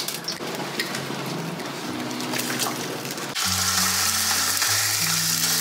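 A fish fillet sizzling in hot oil in a nonstick frying pan; the sizzle gets louder about three and a half seconds in.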